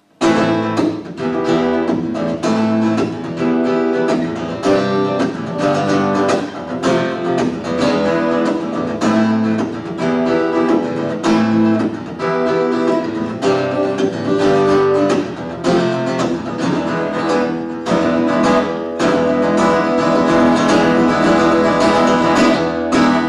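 Solo steel-string acoustic guitar playing chords in a steady rhythm, strummed and picked: the instrumental close of a folk song after its last chorus.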